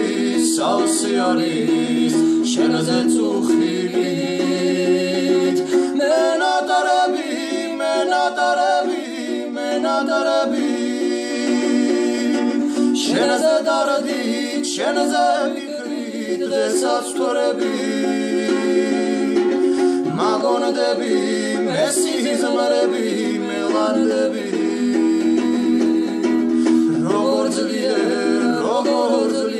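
Two men singing a song together in harmony, accompanied by a small plucked string instrument.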